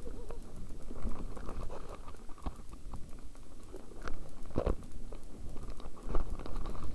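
Mountain bike rolling down a loose, rocky trail: tyres crunching over gravel and small rocks, with irregular knocks and rattles from the bike, picked up by a helmet-mounted camera. The sharpest knock comes about four and a half seconds in.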